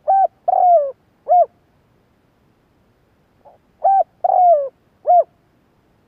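Spotted dove cooing: two phrases about four seconds apart, each a short coo, a longer coo that falls in pitch, and a final short coo, each led by a faint soft note.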